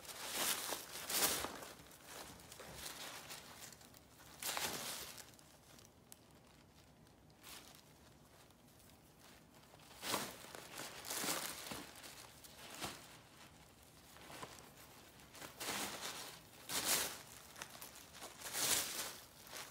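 Tissue paper and a foil gift bag rustling and crinkling in short irregular bursts as a pet rabbit noses into them and tugs the paper out.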